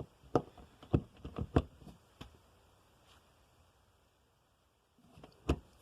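A handful of light knocks and clicks in the first two seconds, then quiet, then two more knocks near the end.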